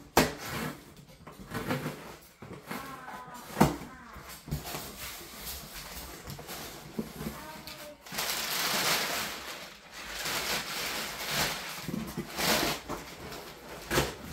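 A cardboard shipping box being opened by hand and the crumpled brown packing paper inside it rustled and pulled about, with two sharp cracks of cardboard, one just after the start and one about three and a half seconds in.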